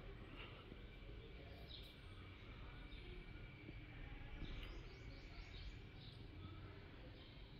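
Faint room tone: a low steady hiss with a thin high tone, and a short run of quick bird chirps about four and a half seconds in.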